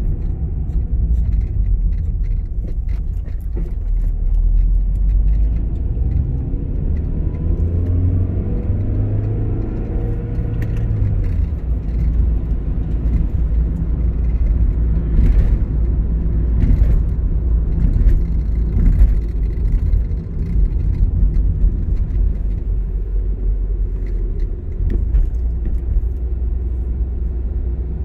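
Car's engine and road noise heard from inside the cabin while driving: a steady low rumble, with the engine note climbing for several seconds and then dropping abruptly about eleven seconds in. A few brief clicks or knocks come in the second half.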